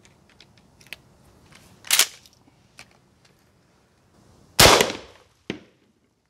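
Mossberg 12-gauge shotgun firing a reduced-charge subsonic slug (9 grains of Red Dot powder): one sharp shot about four and a half seconds in with a short ringing tail, followed by a smaller crack. Before it come a few small clicks and a sharp click about two seconds in.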